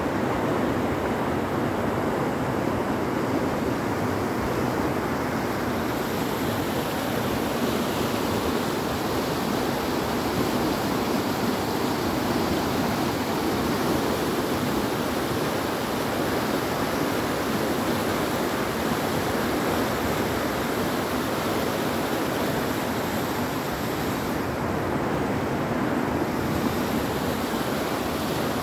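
Steady rushing of the Panjkora River, a fast mountain river running over rocks.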